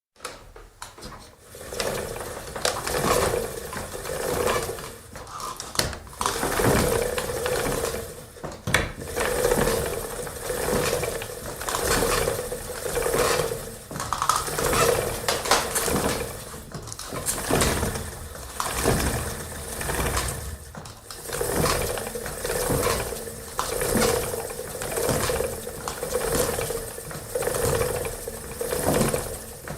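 Antique wooden spinning wheel turning steadily, its wooden parts knocking and rubbing in a rhythm that swells about once every second and a half.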